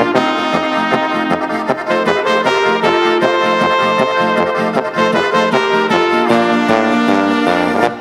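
German brass-band music, with trumpets and trombones playing a melody over a steady, regular beat.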